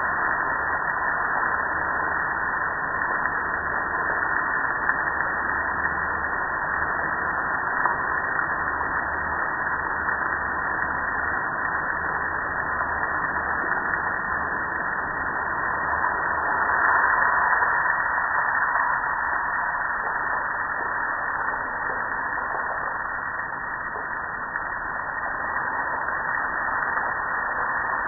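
Garden hose spray nozzle on its shower setting spraying water onto a soapy gas grill: a steady hiss and splatter that swells briefly a little past halfway.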